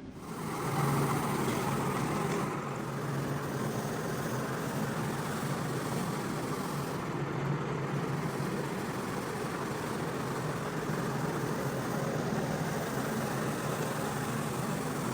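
A carpet-cleaning machine starts up suddenly and runs steadily, a constant motor drone with a broad hiss over it.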